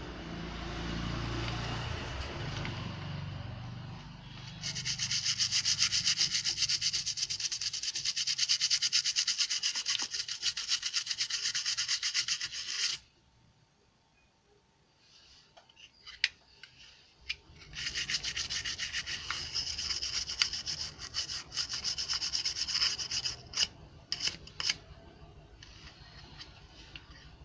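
A stiff-bristled brush scrubbing the corroded circuit board of a water-damaged Honda CB Trigger digital speedometer, cleaning off the residue left by water ingress. It goes in two long bouts of rapid back-and-forth strokes with a pause between them, and a few sharp clicks come in the second bout.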